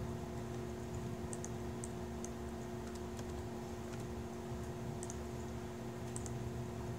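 Typing on a laptop keyboard: irregular keystroke clicks, a few a second, over a steady low hum in the room.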